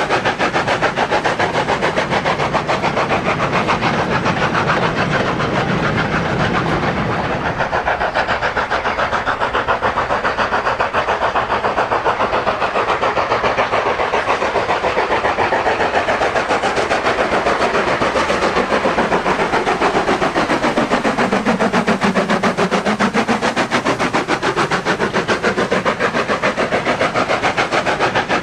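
Model train running on the layout: rapid, steady clicking of its wheels over the rail joints, with an electric motor whine that dips in pitch about three-quarters of the way through and then rises again.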